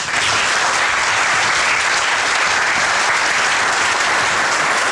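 Conference audience applauding, steady clapping that bursts in all at once as the keynote address ends.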